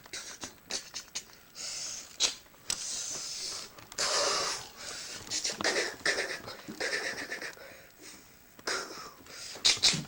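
Repeated breathy hissing and huffing from a person, in bursts of about half a second to a second, mixed with scattered short clicks.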